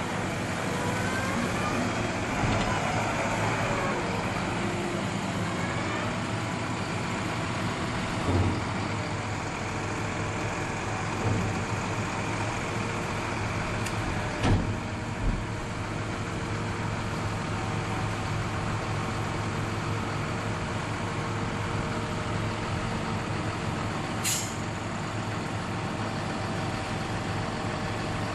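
Tractor engine running steadily while a raised tipping trailer pours sugar beet onto a heap, the beet rattling and tumbling off the back. A few knocks come about a third and halfway through, and a short sharp hiss comes near the end.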